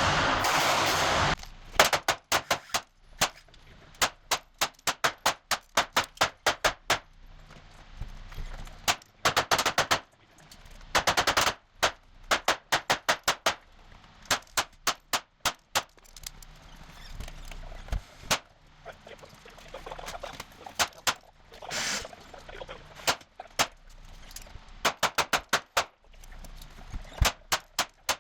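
SK Standard Plus .22 LR standard-velocity rounds being fired one after another, in quick strings of several sharp shots with short pauses between strings. A loud rushing noise lasts about the first second and a half.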